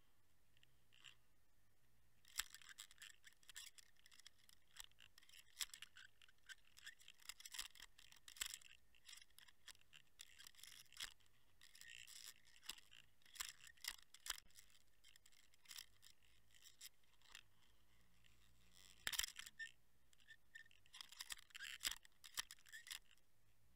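Faint, irregular scratchy clicking and crackling from an underwater camera rig on a fishing line, the line and its fittings rubbing and ticking against the camera housing as the lure is fished, starting about two seconds in.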